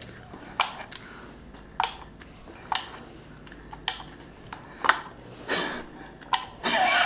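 Plastic teeth of a toy shark biting game clicking as they are pressed down one by one: a sharp click about every second.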